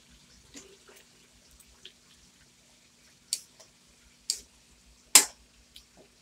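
Metal spatula clanking and scraping against a wok while stirring wet vegetables. A series of sharp clanks: small ones in the first half, then three louder ones about a second apart, the loudest a little after five seconds in.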